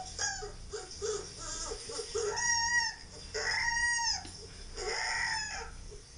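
Husky puppy whining in a rapid string of short high squeals, with two longer drawn-out arching cries about halfway through, played through a laptop's small speakers.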